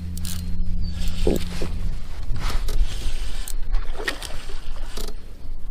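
Spinning reel being cranked while a hooked fish is reeled in toward a small boat, with wind on the microphone and water against the hull. A steady low hum stops about two seconds in.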